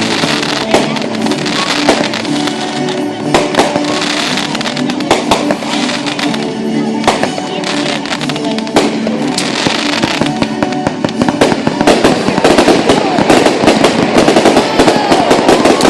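Fireworks display: repeated bangs of aerial shells over music playing. A dense run of crackling builds in the last few seconds.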